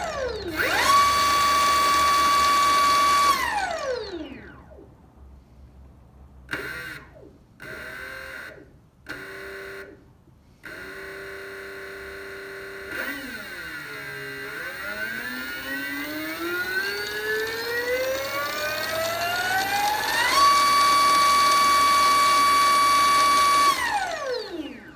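A 48 V 1000 W brushless DC gear-reduction motor running unloaded on a 72 V controller, whining as it is throttled. It revs quickly to a steady top-speed whine, then winds down. A few short low-speed blips and a steady low hum follow. Then the pitch climbs slowly back to top speed, about 6,000 rpm, holds there for a few seconds, and winds down near the end.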